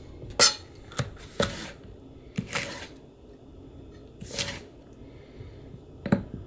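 Chef's knife slicing a jalapeño into thin strips on a plastic cutting board: about half a dozen sharp, unevenly spaced taps of the blade against the board, some with a short scrape as it cuts through.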